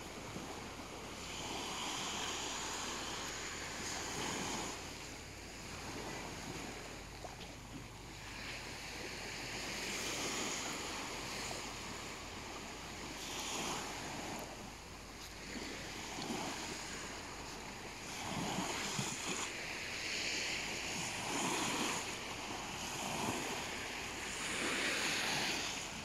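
Small waves washing onto a sandy beach, a hissing surf that swells and eases every few seconds, with some wind.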